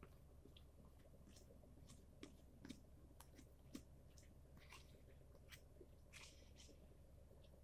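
Faint chewing and mouth sounds of a person eating a soft cooked corn starch and water chestnut starch mixture, with scattered small clicks over a steady low hum.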